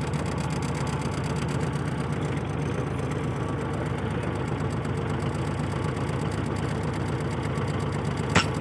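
Vehicle engine idling steadily, heard from inside the cab, with a single sharp click near the end.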